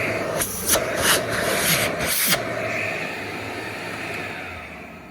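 Dyson CY23 Cinetic Big Ball 2 cylinder vacuum cleaner running, with four short surges of rushing air in the first two seconds or so. From about halfway in, its sound fades steadily as the motor winds down after being switched off.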